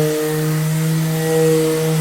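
Electric orbital sander running steadily at full speed, its motor giving a loud, even hum with a stack of overtones.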